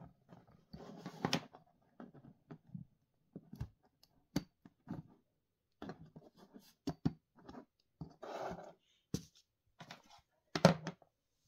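Hands handling a smartwatch and its charging cable on a cardboard box: scattered small clicks and taps with a few short rustling scrapes, the loudest near the end.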